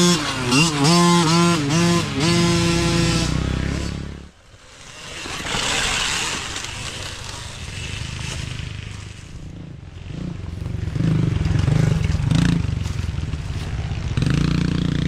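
Small dirt bike engines revving up and down as bikes pass close by. An abrupt cut about four seconds in leads to a rougher, more distant engine sound, and another bike's engine comes in close near the end.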